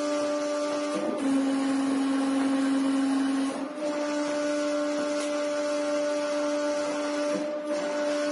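Hydraulic press pump motor running with a steady, pitched hum and hiss as the ram forces material through a die; the hum drops slightly in pitch and grows a little louder for a couple of seconds, starting about a second in.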